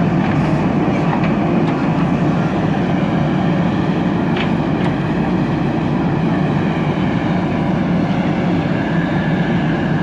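JCB 3DX backhoe loader's diesel engine running steadily under work with a loud, continuous low rumble.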